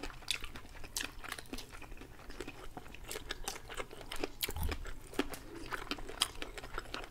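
Close-miked chewing of smoked hunting sausages by two people, made up of many small, irregular mouth clicks and smacks.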